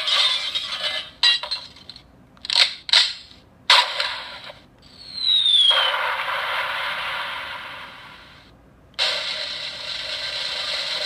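A handheld sound-effects machine playing its built-in effects one after another through a small speaker with no bass. A few short sharp bangs come first, then a short falling whistle about five seconds in, then a long noisy rush that fades away, and another noisy effect starts near the end.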